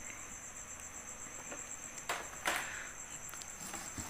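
A cricket chirping steadily in a fast, even pulse. About two seconds in come two brief rustling knocks from a plastic portable DVD player being handled.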